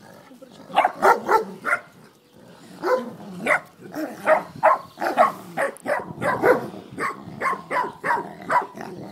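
Dogs play-fighting, with one dog giving short, high barks and yips in quick runs of about three a second: play barking.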